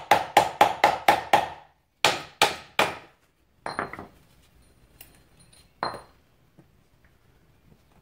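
Rapid metal-on-metal hammer taps, about four a second, driving a spring retaining clip down into its groove. A pause, then three heavier strikes about two seconds in, a few lighter taps near the middle and one more a little later, with faint clinks near the end.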